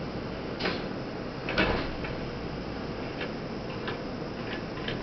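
Steady hum of a Keikyu electric train standing at the platform, with two sharp clunks, the louder one about a second and a half in, followed by a few light ticks.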